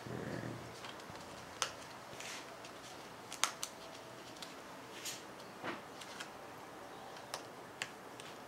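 Fingers clicking and tapping at a laptop keyboard's ribbon cable and its plastic connector while seating the cable: about eight short, sharp ticks spread irregularly, with a soft rustle of handling at the start.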